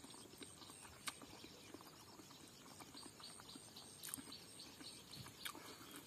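Faint close-up eating sounds: soft chewing and mouth clicks, and fingers picking rice and greens off a banana leaf, with a few sharper clicks scattered through.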